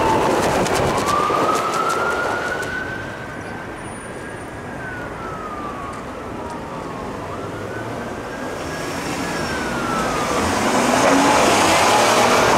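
Emergency vehicle siren in a slow wail, rising and falling in pitch over several seconds. It fades about a third of the way in and grows louder again near the end, over the hiss of street traffic.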